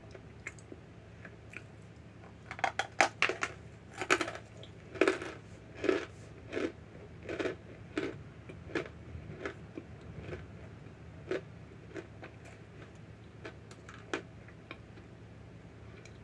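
A chunk of Argo laundry starch being bitten and chewed. A run of crisp crunches starts a couple of seconds in, about two a second and loudest at first, then thins to scattered softer crunches.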